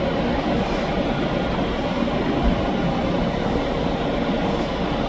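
Electric train passing close by on the tracks: a loud, steady rumble of wheels on rail.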